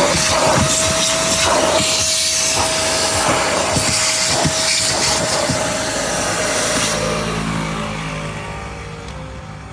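Yamamax Pro vacuum cleaner running with a steady whine over a rush of air. About seven seconds in it is switched off and the motor winds down, its pitch falling as the sound fades.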